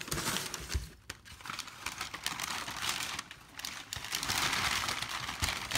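Packing paper being pulled out of a cardboard box, rustling and crackling in quick bursts with a couple of short lulls, busiest near the end.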